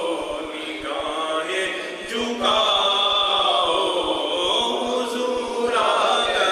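A man reciting an Urdu naat unaccompanied, in a chanting style with long held, ornamented notes and short breaks between phrases.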